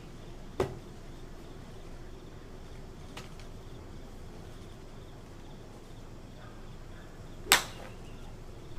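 A golf club striking a ball once with a sharp crack near the end, a solidly struck 5-hybrid shot. Two lighter clicks come earlier, about half a second and three seconds in.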